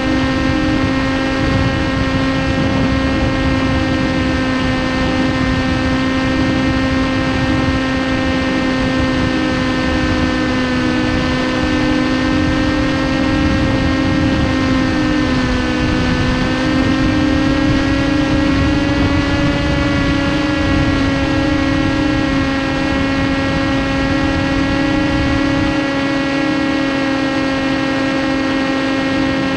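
Brushless electric motor and propeller of a TBS Caipirinha 2 FPV flying wing running at steady cruise: a continuous droning whine over rough wind rush. The pitch sags slightly about halfway through and climbs back a few seconds later.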